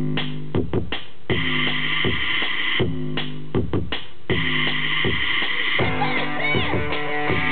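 Electro-punk played live: a drum-machine beat and synthesizer with electric bass guitar. A fuller layer of pitched notes comes in near the end.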